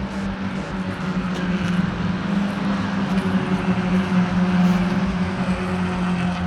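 Race car engine running at high revs on the track: a steady drone that grows louder to a peak about four seconds in, then eases off.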